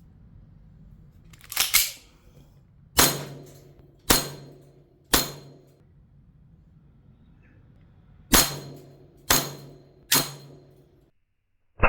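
CO2-powered airsoft replica of the STI 2011 Combat Master pistol firing single shots: four about a second apart, a pause of about three seconds, then three more.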